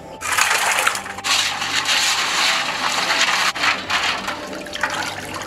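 Raw crab pieces being washed by hand in a basin of water: splashing and swishing, with the hard shells clattering and crunching against each other. The noise starts suddenly about a quarter second in and stays loud throughout.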